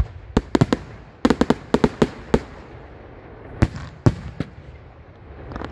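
Aerial firework shells bursting in quick succession: about a dozen sharp bangs in the first two and a half seconds, then three more, spaced out.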